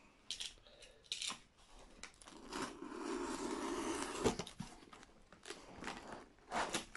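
Box cutter slicing through the packing tape and kraft-paper wrapping of a parcel: a steady scraping cut for about two seconds in the middle, with scattered clicks and paper rustles before and after it.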